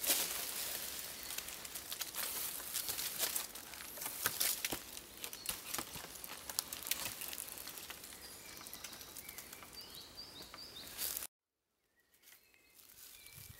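Dense crackling and rustling of dry leaf litter and twigs, with many sharp clicks, as a log hatch covered in leaves is lifted and held open; a bird chirps now and then. It cuts off suddenly about eleven seconds in, and a faint chirping follows.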